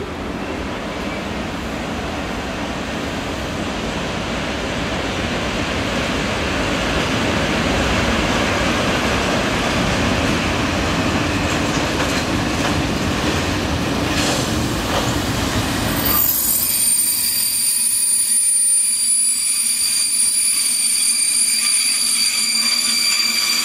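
Freight train rolling past on steel rails, a dense rumble of wagons that grows louder. About two-thirds of the way in, the rumble drops away suddenly and several high, steady wheel squeals take over.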